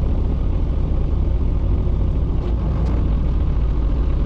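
Small fishing boat's engine running steadily under way, a continuous low rumble with a haze of water and wind noise over it.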